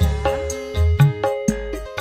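Live dangdut band playing an instrumental passage: kendang hand-drum strokes that bend upward in pitch, about two a second, under bass and sustained keyboard and electric guitar notes.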